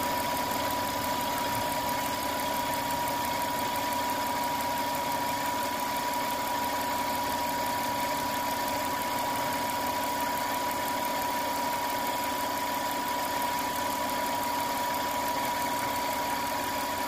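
1992 Lexus ES300's 3.0-litre V6 idling steadily under an open hood, with a thin steady high whine over it. The engine is running smoothly with no shakes or vibrations after its misfire and high-idle fixes (new distributor cap and rotor, replaced ECU).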